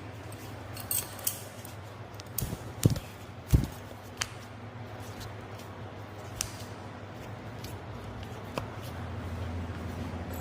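Sounds of a chiropractic adjustment: a few short clicks and knocks. The loudest are two knocks a little under three seconds and about three and a half seconds in, with fainter ticks later, over a steady low hum.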